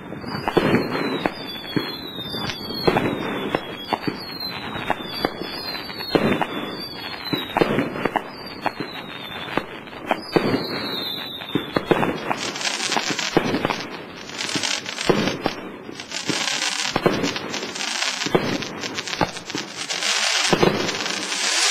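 A 30 mm consumer firework cake firing its shots in succession, about one a second, each with a crack and a falling whistle. In the second half the shots give way to bursts of loud hiss lasting about a second each.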